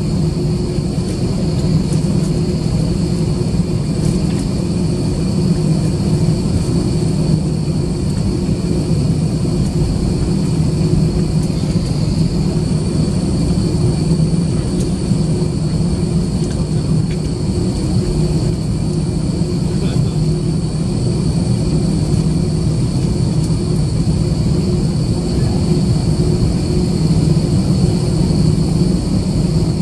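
Cabin noise of an Airbus A320-214 taxiing, heard from a window seat beside the engine: its CFM56 turbofans run steadily at low taxi power. There is a continuous low hum with a steady high whine over it.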